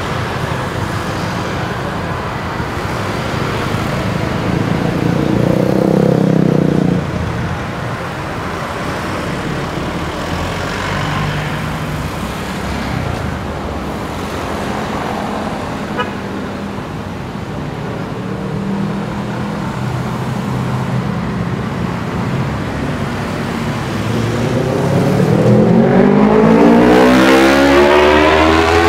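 Busy city street traffic: a steady run of passing vehicles with occasional horn toots. One vehicle swells past about six seconds in, and another passes close near the end, the loudest moment.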